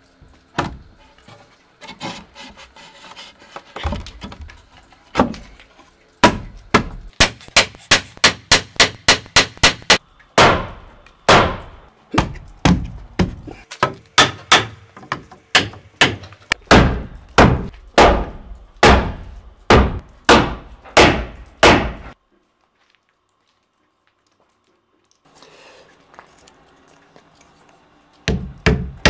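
Hammer blows on wood, struck over and over: a few scattered knocks, then a steady run of about three blows a second, slowing to about two a second. The blows stop dead for a few seconds, then a fast run starts again near the end.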